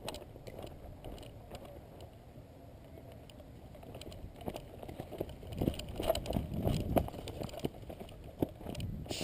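Footsteps and gear rustling of a player moving over rough desert ground, with irregular crunches and knocks that grow busier and louder about halfway through.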